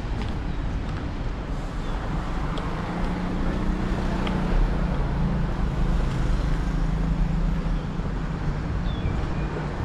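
Road traffic: car engines running with a steady low hum under a haze of general traffic noise.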